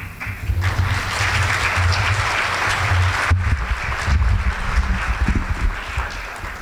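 Audience applauding, dying away near the end, with low bumps from the lectern microphone being handled.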